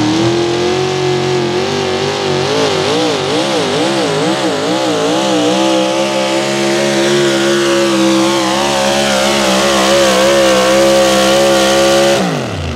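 A pulling vehicle's engine at full throttle during a pull, its pitch wobbling up and down several times early on and then held high and steady. Near the end the throttle is cut and the pitch drops sharply.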